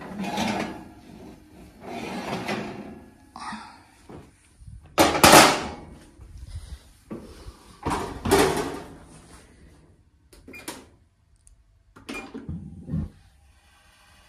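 A run of metal clunks, scrapes and clatters as a metal muffin tin is pulled from a gas range's oven and set down on the stovetop's iron grates, with the oven rack and door being handled. The loudest clatter comes about five seconds in and another about eight seconds in.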